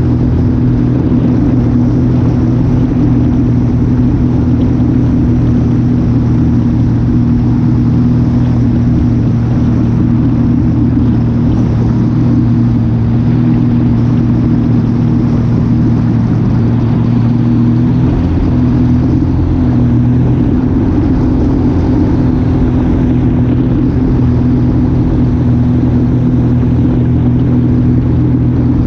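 An engine running at a steady speed, a continuous low drone whose note shifts slightly about two-thirds of the way through.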